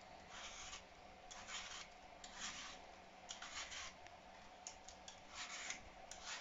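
Vegetable peeler scraping the skin off an apple: a string of short, faint scraping strokes, about one a second.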